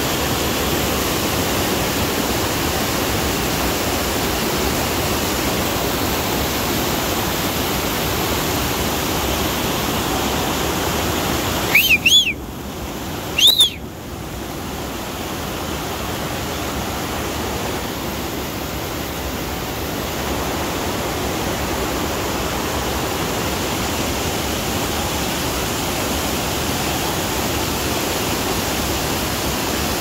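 Mountain stream rushing over boulders below a waterfall, a steady hiss of water. About twelve seconds in come two short, loud whistles about a second and a half apart, each rising then falling in pitch.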